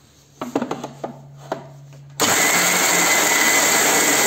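A few short knocks and clicks, then about two seconds in an electric mixer grinder (mixie) switches on and runs steadily at full speed, grinding roasted peanuts and sesame seeds into chutney.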